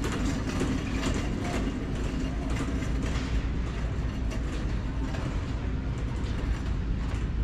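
Shopping cart rolling across a hard store floor, its wheels and wire basket rattling over a steady low rumble.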